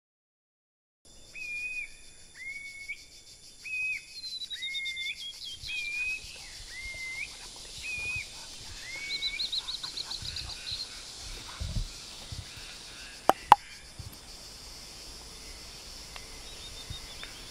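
Tropical rainforest ambience: a bird repeats a short whistled call about once a second for several seconds, while other birds give a falling run of high notes and quick chirps over a steady high insect buzz. Two sharp clicks come close together about thirteen seconds in.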